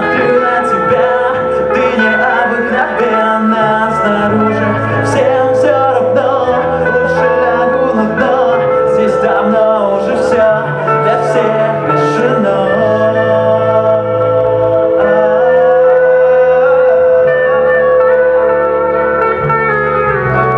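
Live rock band playing electric guitars, bass guitar and a drum kit, loud and continuous. The bass moves to a new note every couple of seconds under a long held note, with cymbal crashes through the first half.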